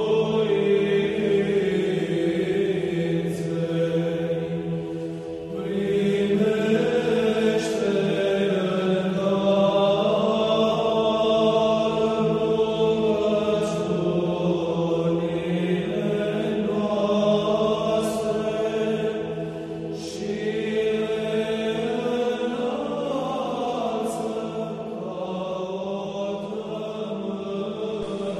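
Orthodox church chant sung by a choir in slow, long-held notes over a steady low drone, with brief pauses between phrases.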